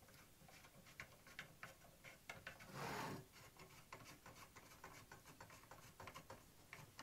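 Faint, irregular light clicks and rubbing from an Acme lead screw being turned by hand through its nut and spring-preloaded anti-backlash nut, with one brief louder rustle about three seconds in.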